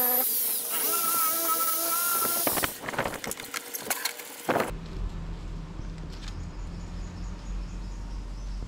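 Electric drill spinning a wire brush against the inside of a frying pan, scouring off rust; the motor whine shifts in pitch and then holds steady before stopping about two and a half seconds in. Sharp clattering knocks follow, then a quieter steady low hum.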